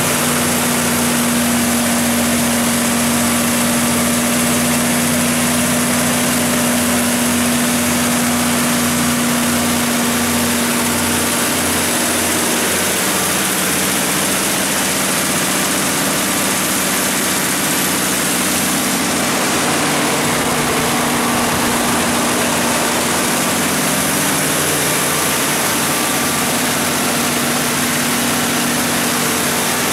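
Cummins VTA28-G5 V12 diesel engine of a 600 kW generator set running steadily, a loud even drone. A steady hum within it fades out about twelve seconds in.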